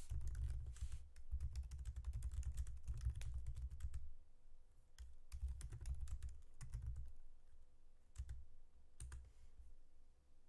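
Typing on a computer keyboard: a quick run of keystrokes for about four seconds, then scattered keystrokes that thin out toward the end.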